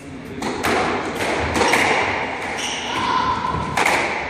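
A squash rally: the ball is struck by racquets and hits the court walls in several sharp knocks, with short squeaks from shoes on the wooden floor in the middle.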